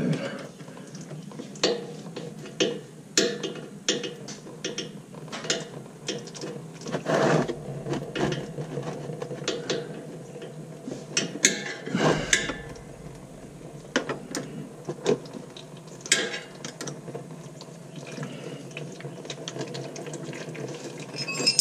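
Irregular clicks and light metallic ticks as the pan bolts of a ZF 8-speed automatic transmission are worked out by hand, with old transmission fluid dripping and trickling into a plastic tub.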